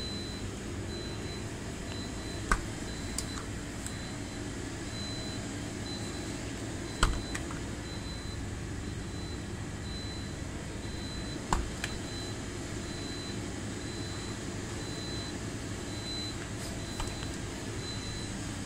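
Steady hum of a refrigerated display freezer and the shop's cooling, with a faint high electronic beep repeating evenly. Three sharp clicks stand out, a few seconds apart.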